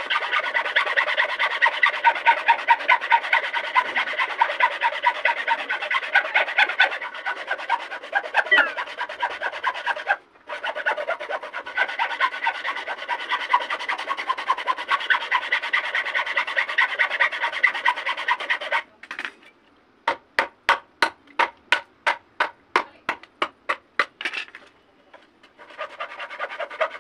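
Hacksaw cutting through a bamboo stem: fast back-and-forth rasping strokes. It stops briefly about ten seconds in. From about twenty seconds the strokes come as short separate rasps, about three a second.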